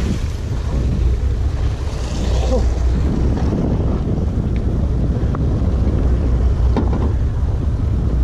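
Wind buffeting the microphone over the steady low rumble of a sportfishing boat at sea, with water washing around the hull and a few faint ticks.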